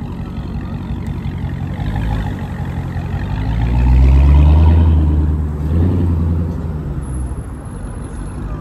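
A motor vehicle's engine rising in pitch and swelling to its loudest about four seconds in, then falling away, over steady road noise.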